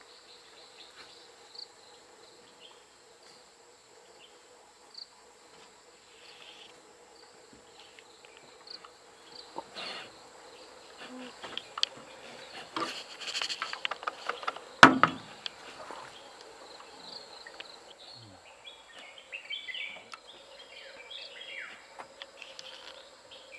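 Steady drone of forest insects throughout, with a cluster of clicks and crackles in the middle and one sharp, loud knock about 15 seconds in; short chirps come near the end.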